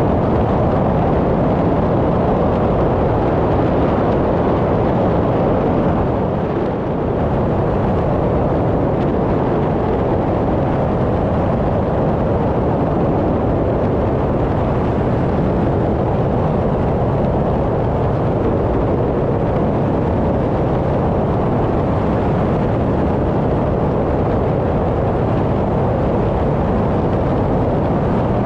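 Cessna 185 amphibian's piston engine and propeller running steadily at cruise-climb power, heard from inside the cockpit as a loud, even drone, with a brief dip in level about six and a half seconds in.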